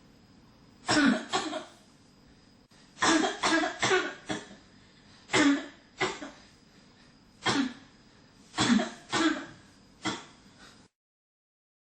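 A person coughing in repeated bouts: two coughs about a second in, a run of about five near three to four seconds, single coughs, then a run of three. The sound cuts off to dead silence about a second before the end.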